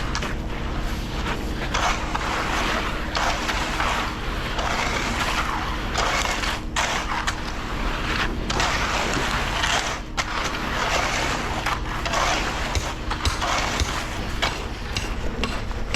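Concrete rakes scraping and dragging through wet concrete in repeated long strokes, over the steady hum of an engine running.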